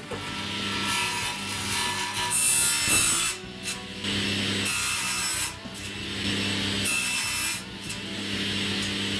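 Table saw blade cutting through a laminate panel, the cutting noise coming in about four long stretches with short dips between, over the steady hum of the running saw.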